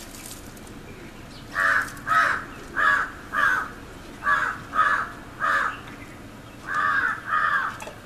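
A crow cawing: nine short, harsh caws, mostly in pairs with brief pauses between them.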